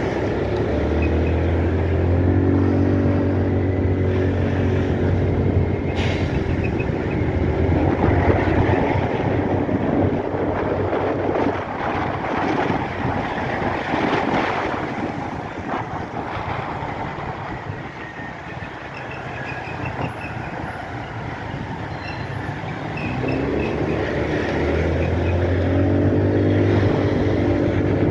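Small motorcycle engine running under way in city traffic, with road and wind noise. The engine note climbs as the bike speeds up early on, sinks into the road and wind noise through the middle, and climbs again as it picks up speed near the end.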